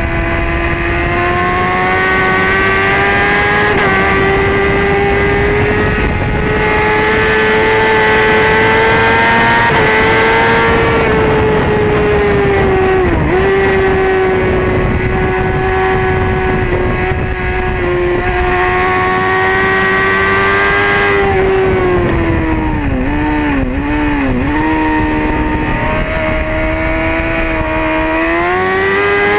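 Honda CBR600RR race bike's inline-four engine at high revs, heard onboard from the tail. Its pitch climbs steadily through the gears with brief dips at the shifts. About three-quarters through a quick run of short dips marks downshifts into a bend, and then the pitch climbs hard again near the end.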